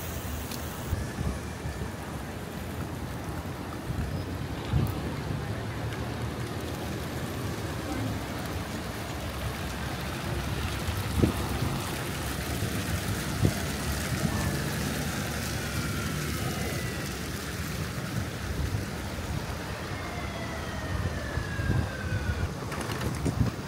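City street ambience: a steady noise of traffic, with a few brief knocks and faint falling tones near the end.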